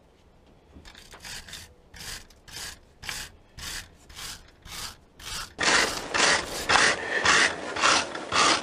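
Hand wire brush scrubbing grubby bolts clean in rhythmic back-and-forth strokes, about two a second. The strokes start about a second in and become much louder a little past halfway.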